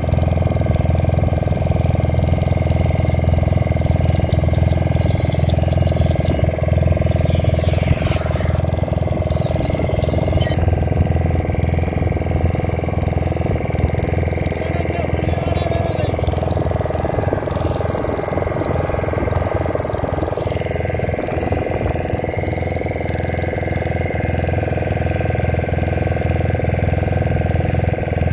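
Fishing boat's engine running steadily, a low, even hum that holds unchanged throughout.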